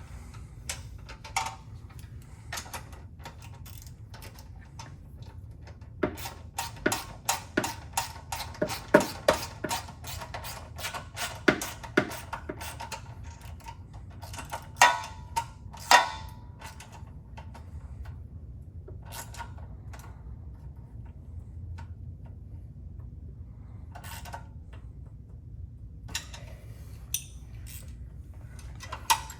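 Hand tools working on the sway bar's bolts: runs of sharp ratchet-wrench clicks and metal taps, densest in the first half, with a few isolated clicks later.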